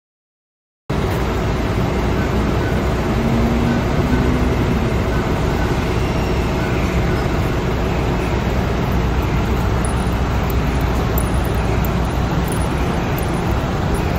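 Steady street traffic noise with a low rumble from road vehicles. It starts abruptly about a second in.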